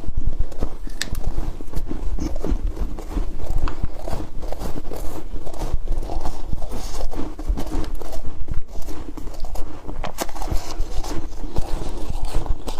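Close-up crunching of freezer frost being chewed: a dense, irregular run of crisp crackles and clicks over a low rumble.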